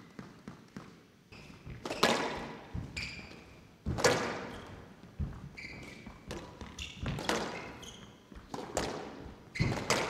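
Squash rally: a string of sharp, reverberating cracks as rackets strike the ball and it hits the walls, the loudest about two and four seconds in, with short high squeaks of players' shoes on the court floor between the shots.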